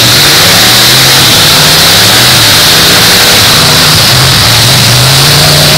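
Engines of several full-size demolition derby cars revving and running together, very loud, their pitch rising and falling as the drivers accelerate and push.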